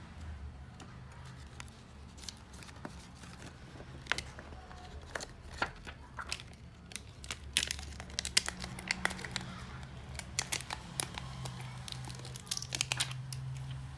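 Cracked Tecno Spark 2 screen being pried and peeled off the phone's frame: adhesive tearing with a scatter of sharp crackling clicks, sparse at first and thickest in the second half.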